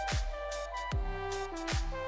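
Background electronic music with a steady beat: a deep kick drum, its pitch dropping on each hit, about every 0.8 seconds under sustained synth notes.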